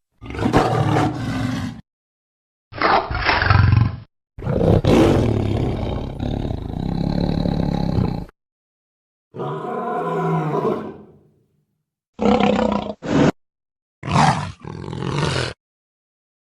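Designed sabre-toothed cat (smilodon) creature sound effects: a string of about seven separate roars and snarls, each cut off cleanly into silence. The longest roar lasts about four seconds, and near the end come a few short snarls.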